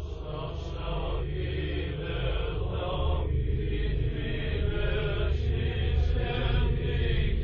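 Slow chanting voices in long phrases over a low steady drone.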